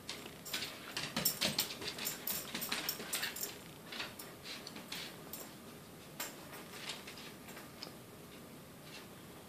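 Pembroke Welsh Corgi's claws clicking and tapping on a parquet wood floor as she spins in circles. A rapid flurry of clicks in the first few seconds thins out to scattered taps.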